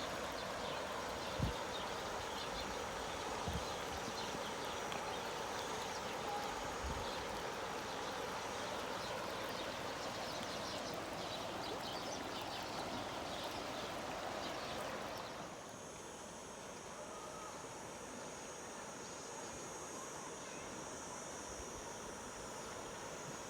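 River water flowing, a steady rush that drops in level about fifteen seconds in, with a few soft knocks in the first seconds.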